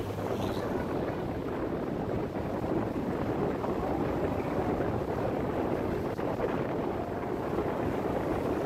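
Steady rush of wind over the microphone mixed with the running noise of a motorcycle riding along a paved road.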